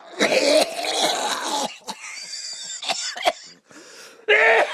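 A person coughing and clearing their throat: a long rasping stretch, then a few short sharp coughs. A pitched voice starts near the end.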